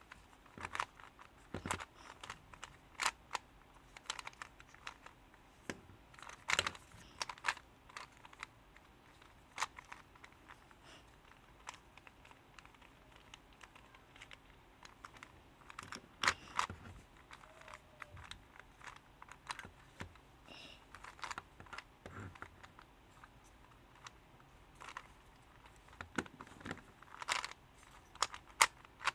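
Ghost Cube, a plastic 3x3 shape-mod twisty puzzle, being turned by hand. Its layers make irregular clicks and clacks in quick runs, with short pauses between the runs.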